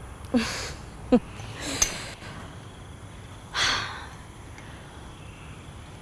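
A person's breathy sighs and soft exhaled laughs: four short breaths, some starting with a brief voiced note, the longest about three and a half seconds in.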